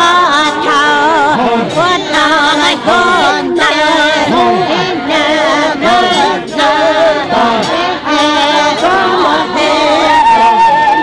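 A group of women singing together without instruments, their voices wavering and ornamented, with one voice holding a long note near the end.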